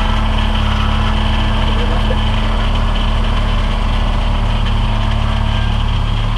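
Kubota compact tractor's diesel engine running steadily at low speed.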